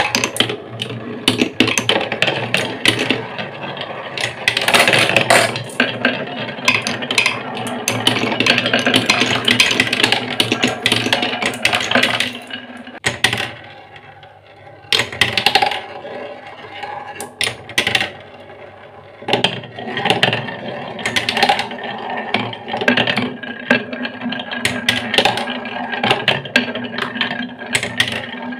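Glass marbles rolling and clattering along wooden marble-run tracks and round a plywood spiral, a steady stream of clicks and rattles. It eases off briefly about halfway through, then picks up again.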